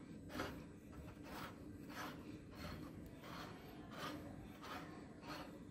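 Faint rhythmic rasping and scraping from a hand-cranked manual meat grinder as it is turned, about one and a half strokes a second, forcing a soft ice cream mixture through its cutting plate.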